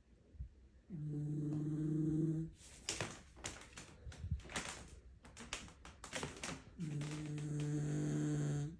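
Snoring: a long, steady-pitched snore about a second in, then a rattling, fluttering breath, then another steady-pitched snore near the end.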